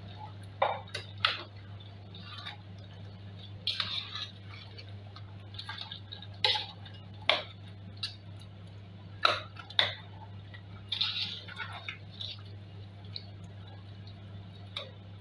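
Metal spoon stirring thick egusi soup in a stainless steel pot, with irregular clinks and scrapes against the pot's side about once a second, over a steady low hum.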